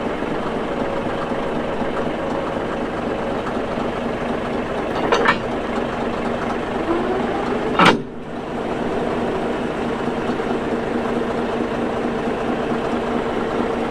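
Large diesel engine of heavy equipment running steadily, with a brief squeak about a third of the way in and a sharp knock a little past halfway.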